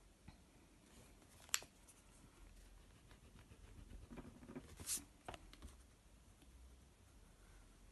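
Faint pencil strokes scratching on sketchbook paper, with a sharp tick about a second and a half in and a brief louder swish about five seconds in.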